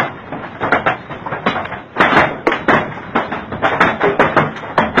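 Heavy hail falling, hailstones striking nearby hard surfaces in a dense, irregular clatter of sharp knocks over a steady hiss.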